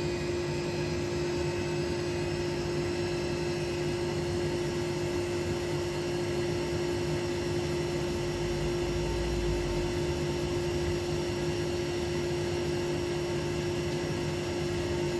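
Hotpoint Experience WMEF641 washing machine running, its motor and drum giving a steady whirring hum with a constant tone over a whoosh, and a brief low rumble about nine seconds in.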